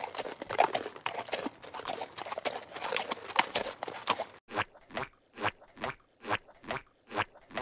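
Footsteps walking on a concrete sidewalk: first a dense clatter of several people's steps, then, after about four and a half seconds, clear single steps at a steady pace of about two and a half a second.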